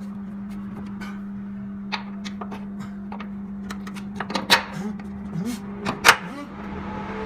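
Scattered metallic clinks and knocks of tools and parts being handled during shock absorber work, the two loudest knocks about four and a half and six seconds in, over a steady low hum.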